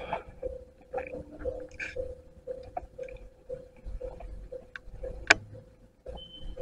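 Railway level-crossing alarm ringing in an even rhythm of about two strokes a second, warning of an approaching train. A sharp click sounds about five seconds in.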